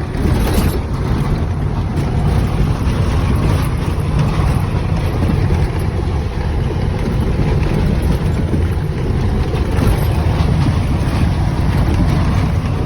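A vehicle driving over a corrugated washboard dirt road at about 30 km/h: a loud, steady low rumble with the whole cab shaking and rattling.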